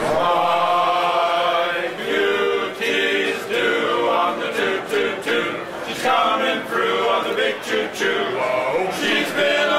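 Men's a cappella group singing in close harmony, several voices holding chords together with no instruments.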